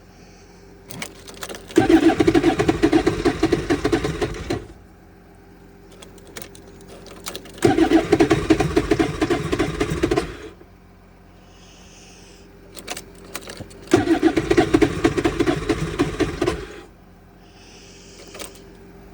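A 2026 Ski-Doo MXZ Neo+ snowmobile engine cranking three times, about three seconds each, with a fast rhythmic chug that never catches: a cold no-start at 0 °F. Clicks and short high tones come between the attempts.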